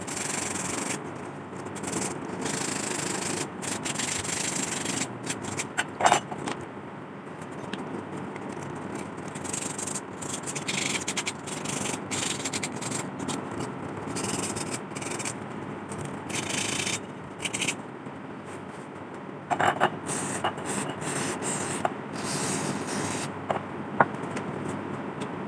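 Sandpaper rubbing over rusty sheet metal of an old lantern, in spells of back-and-forth strokes with short breaks, taking off the rust. A few sharp knocks come through, three times.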